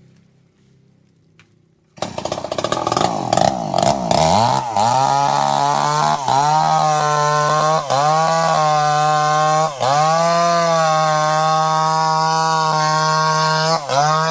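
Chainsaw engine running: after near quiet it comes in suddenly about two seconds in, its pitch sweeping up and down for a couple of seconds before settling into a steady high whine, with a few brief dips in revs.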